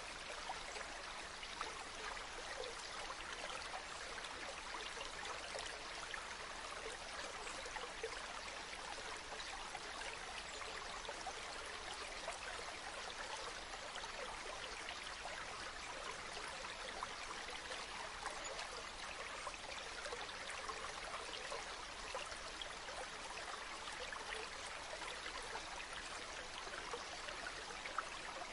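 Waterfall: a steady rush of falling and splashing water, even throughout, with small splashes flickering through it.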